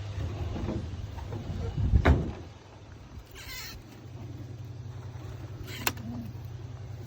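Handling noises from a crate of racing pigeons as the next bird is taken out: a knock about two seconds in, a brief rustle a little later, and a sharp click near the end, over a steady low hum.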